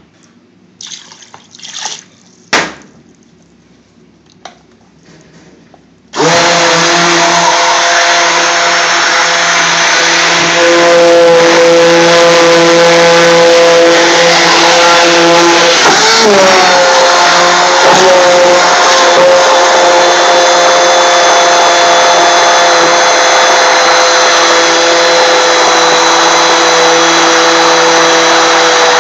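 A few knocks, then about six seconds in a large stick (immersion) blender switches on and runs steadily, puréeing cooked onion base gravy in a bucket. Its pitch dips and wavers briefly partway through before settling.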